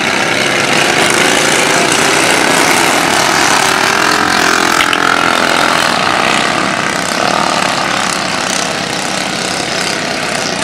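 Several racing riding lawn mowers' engines running together at full throttle, loud and continuous, growing a little quieter over the last few seconds.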